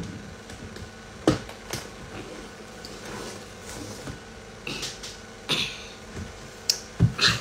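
A scattering of sharp clicks and knocks over a low steady background: one loud click about a second in, a few more in the middle, and a cluster of heavier knocks near the end.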